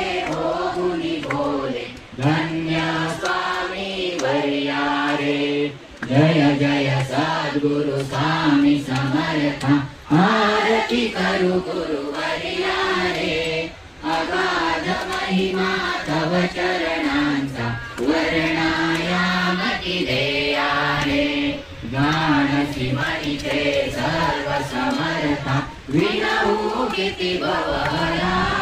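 A group of voices chanting a devotional hymn in unison, melodic and in steady phrases of about four seconds with short breaks for breath.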